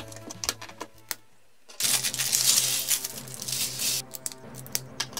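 Plastic LEGO bricks clicking and tapping as they are handled and pressed together. The sound drops out briefly after about a second, then a loud rattling rustle lasts about two seconds before the clicking resumes.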